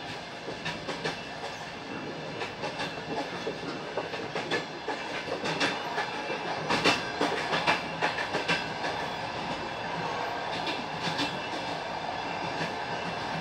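Train wheels clattering over rail joints as the passenger train runs along, over a steady rolling rumble. The knocks come in irregular clusters through the middle and thin out near the end.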